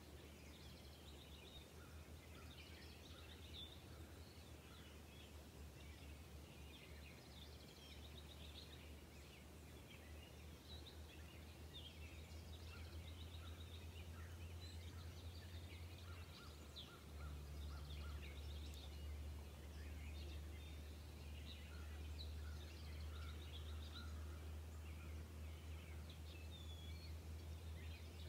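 Faint outdoor ambience of small birds calling: many short, high chirps and trills scattered throughout, over a steady low hum that grows a little louder partway through.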